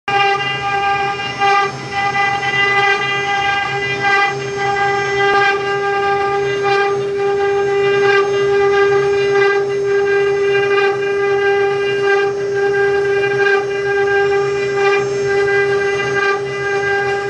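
Multi-head CNC wood router running, its spindles giving a steady whine as the bits carve relief scrollwork into wooden panels, with a rougher cutting noise underneath.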